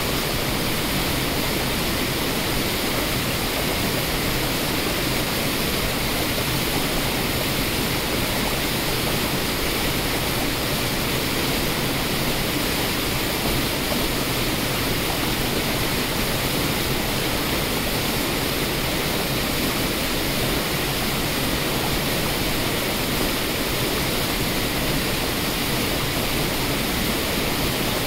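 Water rushing steadily over rocky falls and rapids: an even, unbroken rush with no changes.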